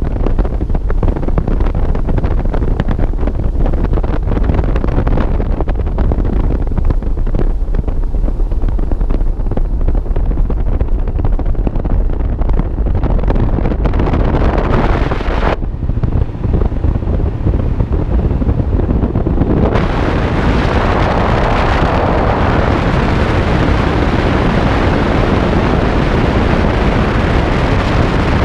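Heavy wind buffeting the microphone of a bass boat running at speed, with the outboard motor and water rushing past the hull underneath. The high hiss drops away about fifteen seconds in and comes back stronger about four seconds later.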